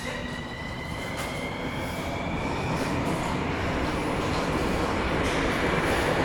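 Metro train accelerating away from a station, heard from inside the car: a thin whine rising slowly in pitch over a running rumble that grows steadily louder.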